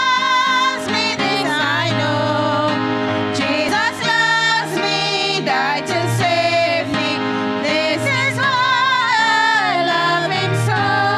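A trio of women singing a hymn together into microphones, their voices wavering with vibrato, over an accompaniment of steady held low notes.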